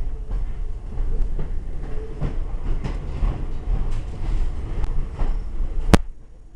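A moving passenger train heard from inside the carriage: a steady low rumble of wheels on rails with irregular clicks from the track. Near the end comes one sharp click, after which the noise drops much quieter.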